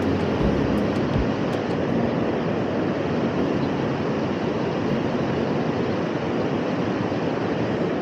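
Steady rushing outdoor noise with no distinct events, evenly loud throughout.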